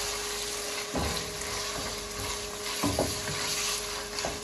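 Chopped onions, beef and tomato paste sizzling in hot oil in a non-stick wok as a silicone spatula stirs them, with a couple of soft knocks about a second and three seconds in, over a faint steady hum.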